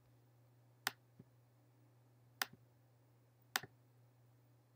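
Three sharp clicks of a computer mouse button, each about a second and a half apart, the first two followed by a fainter click, over a low steady hum.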